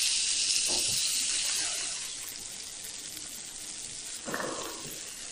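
Pepper-crusted steaks sizzling in clarified butter in a hot pan, a steady hiss that fades about two seconds in and carries on more quietly.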